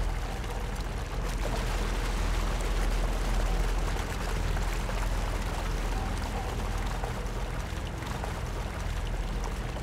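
Steady rush of pouring, gushing water.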